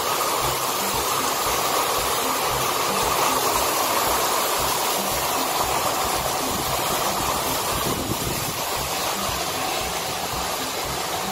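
Heavy rain pouring down, a steady, even hiss with no break.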